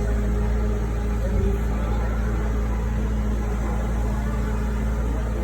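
Steady low engine hum with a constant tone above it, typical of an idling engine or machine running, with a brief low knock about a second and a half in.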